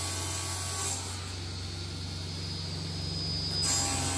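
Sliding-table panel saw running with a steady hum, its blade cutting through MDF board: a hissing cut about the first second and another starting near the end.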